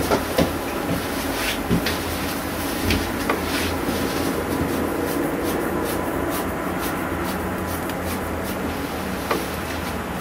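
Steady low drone with a slightly wavering tone, the unexplained 'strange sound' whose source could not be found. Several sharp clicks break through in the first few seconds, and one more near the end.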